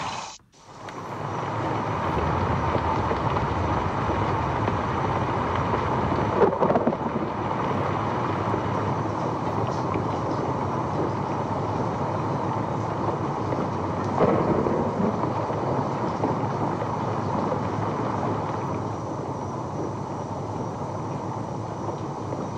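A steady rumbling noise, with two brief louder swells, about six and a half and fourteen seconds in.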